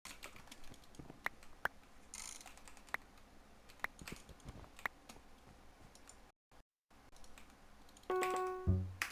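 Scattered sharp clicks, one roughly every second, made for a click-sounds recording. Near the end a louder, short pitched tone with a low hum comes in.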